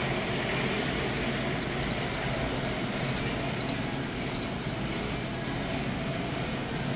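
Model train running on its elevated loop of track, a steady rolling rumble over a constant low hum.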